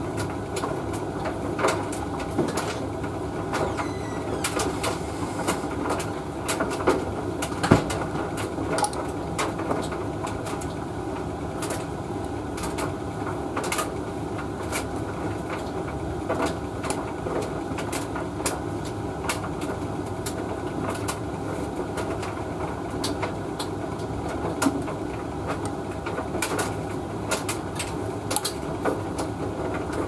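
Hoover VTV581NC vented tumble dryer running: a steady drone from the motor and fan as the drum turns, with frequent light clicks and knocks from the load of laundry tumbling against the drum.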